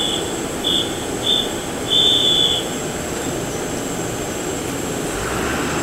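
Steady noise of an airliner's jet engines running. Over it, in the first three seconds, come a series of high-pitched beeps: one long, two short, then one long.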